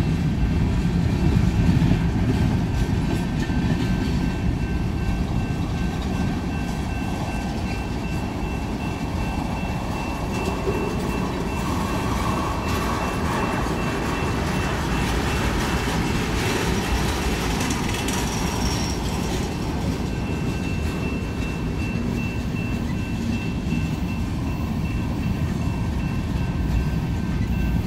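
Freight train cars (covered hoppers, tank cars and gondolas) rolling past: a steady low rumble and rattle of steel wheels on the rails.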